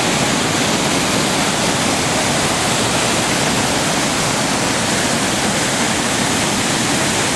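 A waterfall on a river in full flow, its water rushing steadily and loudly.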